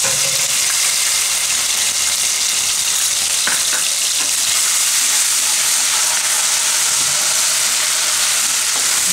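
Chopped ginger, green chillies and garlic sizzling in hot oil in a kadai: a steady frying hiss, with a spatula stirring them near the end.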